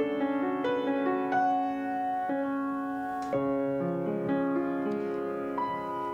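Solo piano playing a slow, gentle passage of broken chords and held notes in triple time: the accompaniment of an art song, before the voice comes in.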